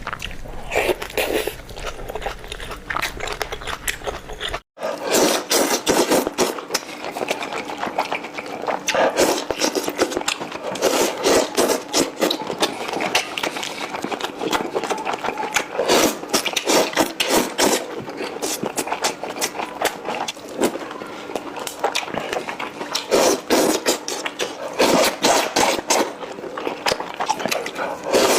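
Close-miked chewing of spicy Korean food, a dense run of mouth clicks and smacks, broken by a short gap about five seconds in.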